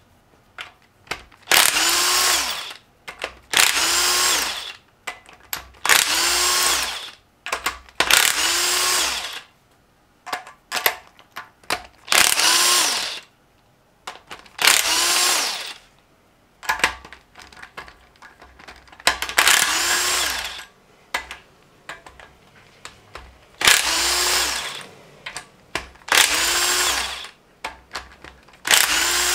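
Cordless impact gun spinning the camshaft-cap and rocker-assembly bolts loose on a Honda K20 cylinder head, in about ten separate bursts of a second or so, each starting with a quick rise and fall in motor pitch. Small clicks of the socket and loose bolts come in the gaps.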